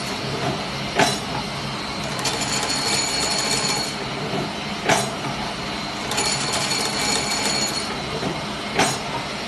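Automatic fabric-strap heat-cutting machine running through its cycle: a sharp clack about every four seconds, three in all, each followed about a second later by a high whine that lasts about two seconds, over a steady mechanical running noise.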